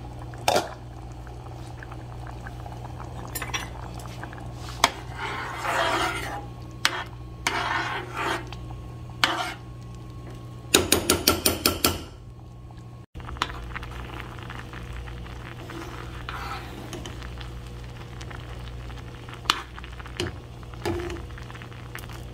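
A metal slotted spoon stirring rice in a saucepan of boiling water, scraping and knocking against the pan, with a quick run of clinks about eleven seconds in. A steady low hum runs underneath.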